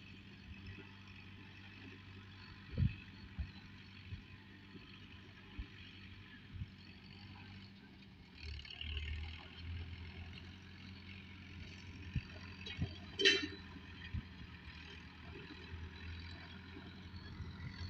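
Tractor engine running steadily and faintly, a low even hum, with scattered knocks and clatter.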